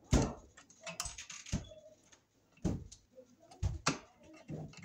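Screwdriver tightening a terminal screw on a fused disconnect switch, making irregular small clicks and knocks of metal on metal.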